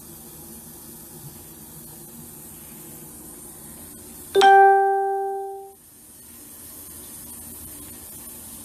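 A single loud chime-like ding about four seconds in: one clear note that fades over about a second, heard over a steady hiss.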